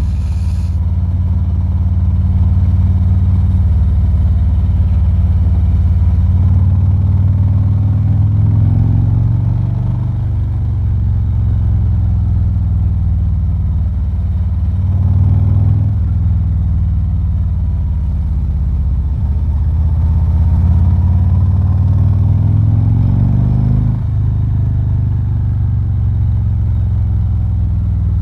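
2019 Harley-Davidson Ultra Limited's Milwaukee-Eight V-twin engine running under way, with wind noise, as picked up by a cheap lapel mic inside a full-face helmet with the visor down. The engine note climbs and drops back about three times as the bike accelerates and changes speed.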